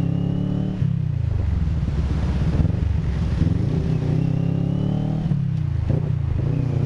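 Motorcycle engine running on the road, its pitch falling, climbing and falling again as the throttle changes.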